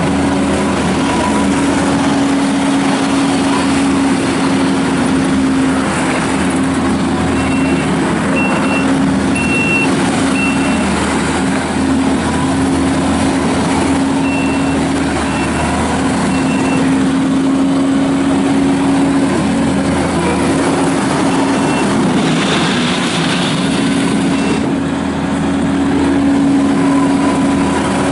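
Kubota SVL75-2 compact track loader's diesel engine running steadily as the machine is driven around, with its backup alarm beeping in short spells while it reverses.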